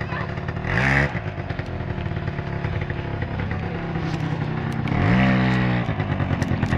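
Aeon Revo R100 quad's small single-cylinder engine running under way. It revs up briefly about a second in, then again for longer from about five seconds, with the pitch rising and then falling away.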